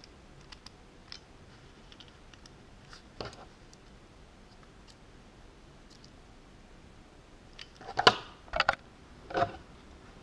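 Light clicks and taps of small tools being handled, then three louder knocks, each a little over half a second apart, near the end.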